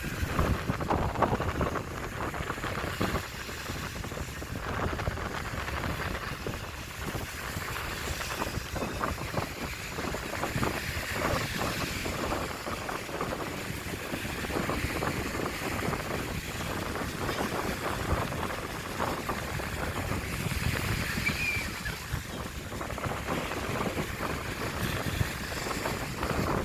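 Strong wind buffeting the microphone in gusts, over the steady wash of sea waves on the shore.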